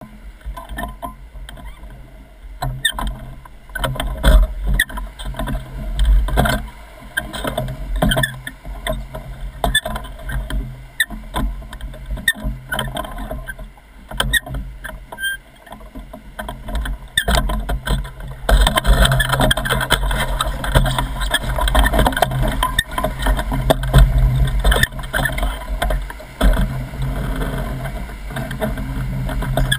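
River rapids rushing and splashing around an inflatable oar raft as it is rowed, with frequent sharp knocks from the oars and frame. About two-thirds of the way through, the rushing turns louder and steadier as the raft enters the whitewater.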